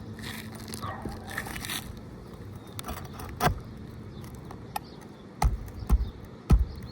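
Flat bar scraping and prying under asphalt roof shingles to work a stuck roofing nail loose, with a sharp click about halfway through and a few heavy thumps near the end. The shingles are stiff and brittle, and the prying tears at them.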